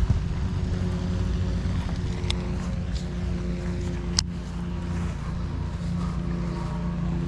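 A steady engine drone at a constant pitch over a low rumble, with a single sharp click about four seconds in.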